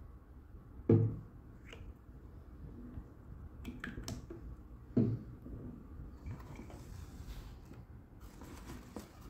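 Handling noises of product packaging: two dull knocks, about a second in and about five seconds in, and a few light clicks of a plastic pump-spray cap around four seconds. Near the end comes the rustle of wood-wool packing in a cardboard box.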